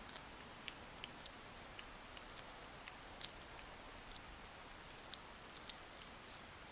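A cat chewing its food, small irregular crunching clicks several times a second over a faint steady hiss.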